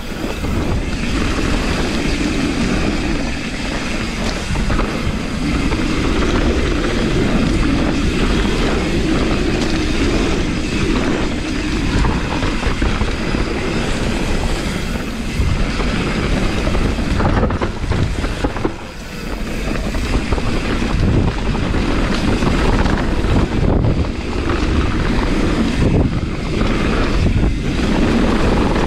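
Mountain bike riding fast down a dirt trail: a loud, steady rush of wind on the microphone mixed with the tyres and the bike rattling over the ground. The rush dips briefly about two-thirds of the way through.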